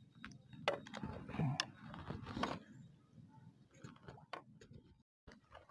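Faint, indistinct voices with a few light clicks, dying away after about three seconds; the sound cuts out completely for a moment about five seconds in.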